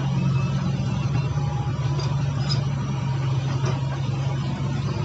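Diesel engine of heavy earthmoving machinery running steadily with a low, even hum. A faint high squeak comes about two and a half seconds in.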